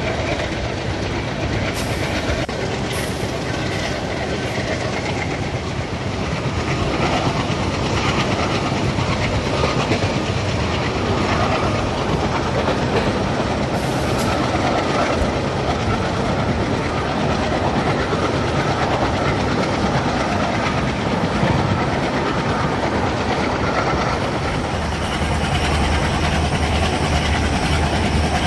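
Train hauled by an Indian Railways WDM-3D diesel locomotive running steadily, with the clickety-clack of wheels over rail joints and a continuous rumble. A few sharp clicks come in the first few seconds, and a low engine drone grows stronger near the end.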